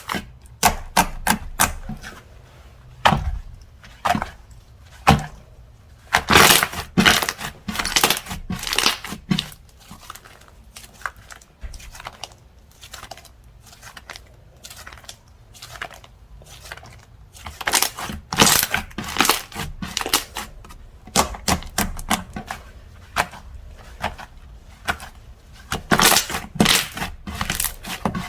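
Slime being squeezed, stretched and poked by hand, giving quick runs of sticky pops and clicks from trapped air, in clusters with quieter pauses between.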